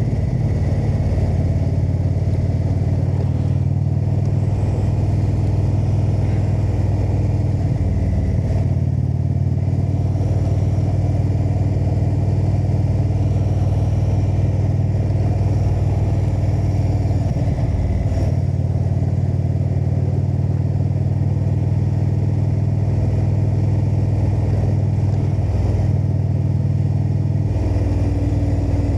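Indian V-twin cruiser motorcycle engine running under way on the road, a steady low note that shifts a few times: once about a third of the way in, again around the middle, and near the end.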